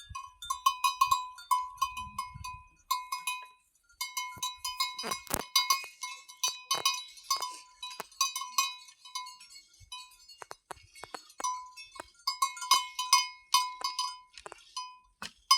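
Metal cowbells on grazing cattle clanking irregularly, several strokes a second, each with a short ringing note, with brief pauses about four seconds in and again around ten seconds in. It is the sound herders use to locate grazing cattle in thick bush.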